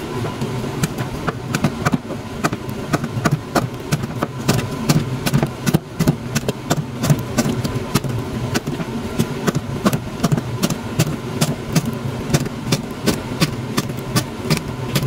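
Kitchen knife slicing fresh red chillies on a cutting board: quick, uneven taps of the blade against the board, a few each second, over a steady low hum.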